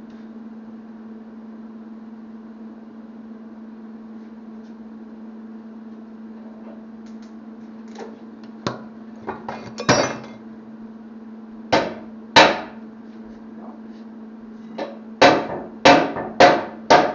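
Hammer blows on a steel part: scattered strikes from about halfway in, two loud ones, then a quick run of four near the end, over a steady low hum.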